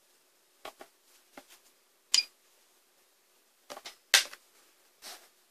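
Scattered clicks and knocks of a hand handling a digital multimeter on a workbench. The loudest cluster comes about four seconds in, as its rotary selector dial is clicked round. A very faint steady hum lies underneath.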